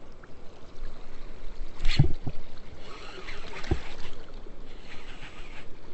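River water sloshing and splashing around a white bass held in the current to revive it, with a sharper splash about two seconds in.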